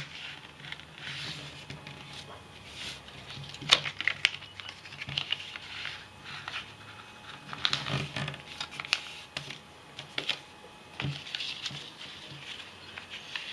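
A sheet of paper being folded and creased by hand into a paper airplane on a hard tabletop: irregular rustling and crinkling, with a few sharp ticks, the loudest about four and eight seconds in.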